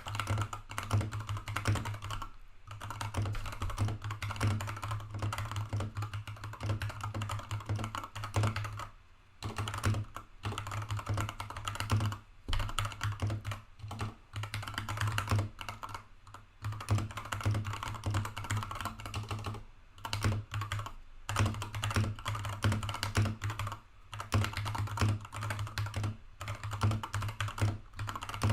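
Fast continuous typing on a foam-modded Redragon K552 mechanical keyboard with FEKER Milk Green switches and PBT keycaps: rapid key clicks with a short pause every few seconds.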